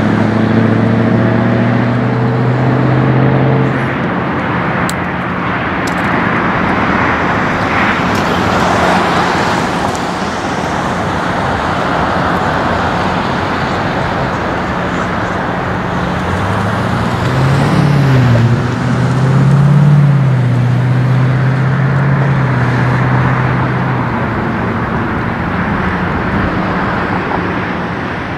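Diesel locomotive engine running as the locomotive moves off, a low drone that fades after a few seconds and returns about halfway through, dipping and rising in pitch briefly, over a steady rushing noise.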